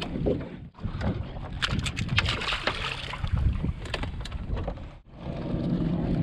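Sharp clicks and rattles of metal pliers working a hook out of a small fluke's mouth, over wind and water noise. After a break about five seconds in, a steady low rumble of the boat takes over.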